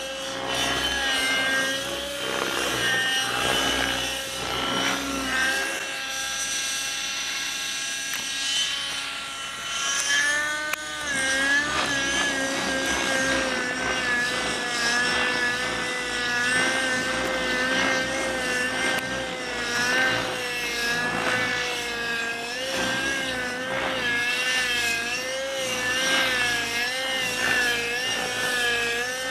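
Radio-controlled model helicopter flying: a steady engine and rotor whine whose pitch wavers up and down as it manoeuvres.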